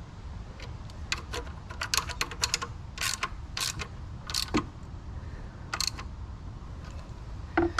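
Irregular sharp metallic clicks of a socket ratchet being worked in short strokes while tightening the alternator's mounting bolts, with a steady low hum underneath.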